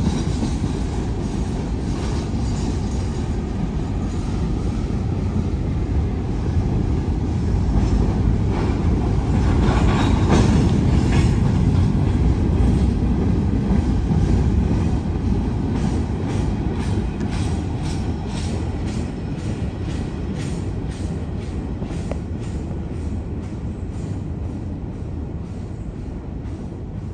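Empty open-top hopper cars of a freight train rolling past: a steady rumble of steel wheels on rail that swells about ten seconds in and eases a little later. Clickety-clack of the wheels over the rail joints comes through in a steady rhythm in the second half.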